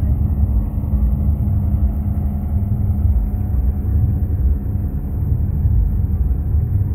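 New Holland 3630 tractor's diesel engine running steadily with a deep rumble.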